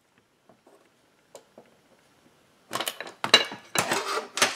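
Metal tools and parts being handled on a steel workbench: a few faint clicks, then from about two and a half seconds in a run of loud clattering and rustling bursts with some metallic clinks.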